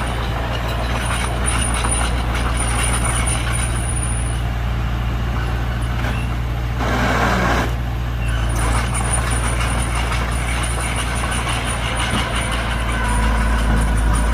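Heavy diesel earthmoving machinery running steadily with a deep drone and a thin high whine, with a short noisy burst about seven seconds in.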